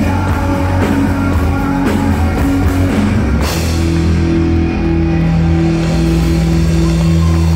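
Live rock band with electric guitars, bass guitar and drum kit playing loudly. About three and a half seconds in, the band strikes a chord with a crash on the drums and holds it ringing.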